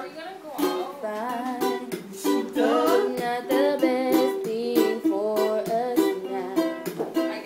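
A break-up song playing for dancing: a strummed string accompaniment with a steady beat, and a singing voice that comes in about a second in.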